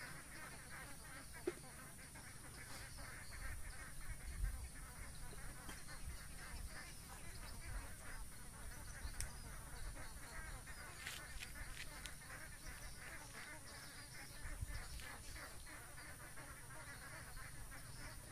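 Many short animal calls, repeating over and over at a distance, over a low steady rumble.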